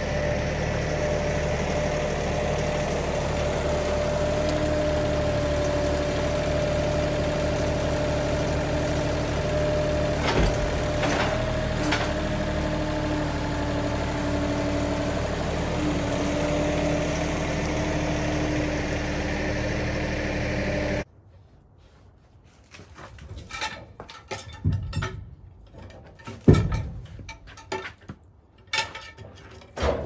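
Compact tractor engine running steadily while its grapple sets a log down, with a few clunks about ten to twelve seconds in. The engine cuts off suddenly about two-thirds of the way through, then scattered metal clanks and wooden knocks follow as a cant hook is worked against the log on the sawmill.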